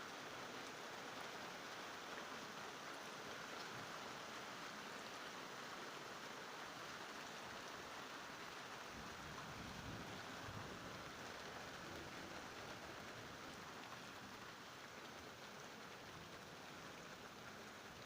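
Rain from a thunderstorm falling steadily, an even hiss of drops on surfaces.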